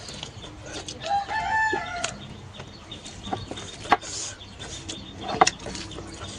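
A rooster crowing once, about a second long, starting about a second in. Two sharp clicks come later.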